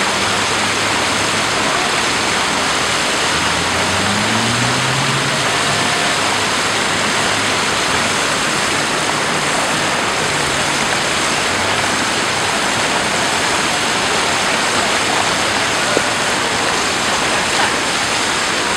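Water jets of a large public fountain splashing steadily into its pool, an even rushing hiss, with a faint low hum rising in pitch about four seconds in.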